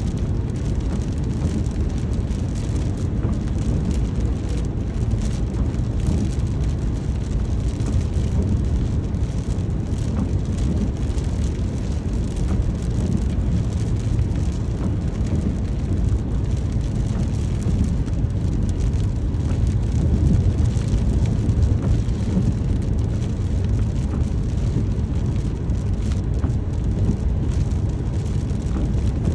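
Steady rain, an even unbroken wash of noise that is heaviest in the low end, with faint scattered drop ticks on top.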